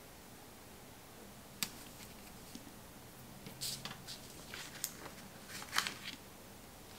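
Quiet handling of stationery on a desk: a single sharp click, then a cluster of small clicks and light paper rustles, the loudest near the end.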